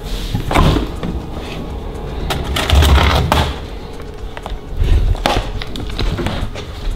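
Refrigerator door opened and swung shut, with a clear plastic container rustled as it is taken out, and bumps of hand-held camera handling. The knocks and rustles come in three bunches: about half a second in, around the middle, and about five seconds in.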